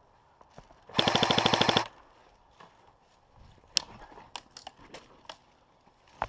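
Airsoft gun firing one rapid full-auto burst of under a second, close to the microphone. It is followed by scattered faint sharp snaps and clicks.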